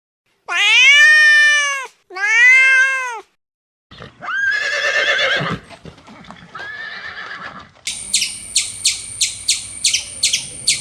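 A series of different animal calls: two high, arching calls, each rising then falling, followed by two shorter, rougher calls, then a rapid, even clicking chirp about three times a second near the end.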